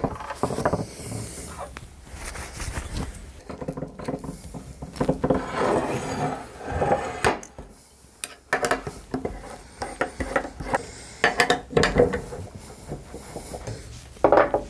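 Steel sine-plate parts and bolts clinking and scraping as the bolts are turned in with a T-handle hex key and the plate is handled on the workbench: irregular metal clicks and rattles.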